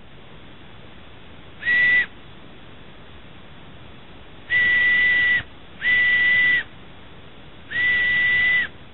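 Homemade birch bark whistle blown four times: a short toot, then three longer blasts. Each blast is a single steady high note with a breathy hiss around it.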